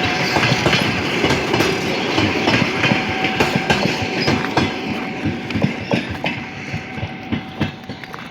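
Departing passenger train rolling along the track, its wheels clattering over rail joints in an irregular clickety-clack. The sound fades over the last few seconds as the train moves away.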